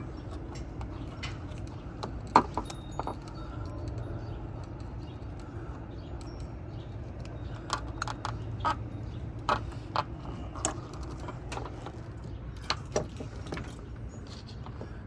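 Scattered sharp metallic clicks and clinks of hand tools and camper door-lock parts being handled, the loudest about two and a half seconds in and a cluster of them between about eight and eleven seconds, over a steady low hum.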